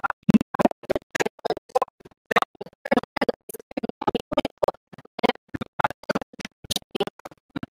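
Close crunching of snack chips and crinkling of snack bags, in quick irregular bursts several times a second with short silent gaps between.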